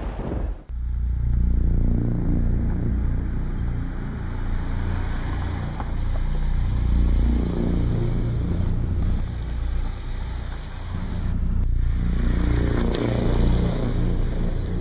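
Car running close by: a low, steady rumble, with a sudden dip about half a second in and a short break near the end.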